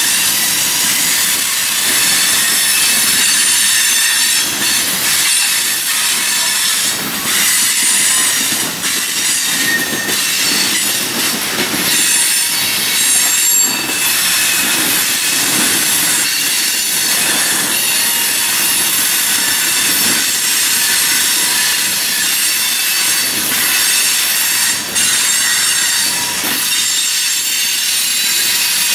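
A freight train's cars rolling past close by, with a steady clatter of steel wheels on the rails. Thin, high-pitched squealing tones from the wheels ring above it throughout.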